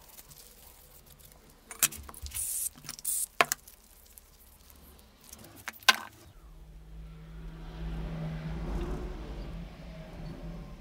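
Workshop handling sounds: a few sharp metallic clicks and knocks with short hissing scrapes. About six seconds in, an electric motor starts up and runs with a steady low hum that swells and then eases off.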